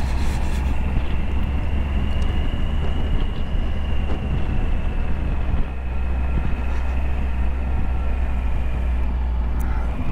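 Motorcycle engine running at a steady cruise with wind noise over the helmet-mounted microphone: a steady low drone and a thin high whine.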